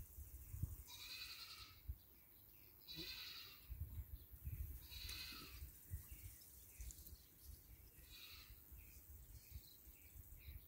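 Goats bleating: four short, high calls a couple of seconds apart, fairly faint, over a low rumble.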